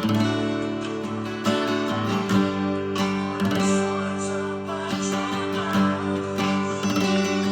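Acoustic guitar (violão) strumming chords, each chord left ringing before the next strum.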